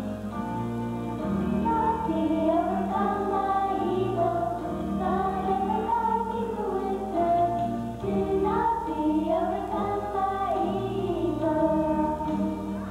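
Children's choir singing a song over instrumental accompaniment, the melody rising and falling.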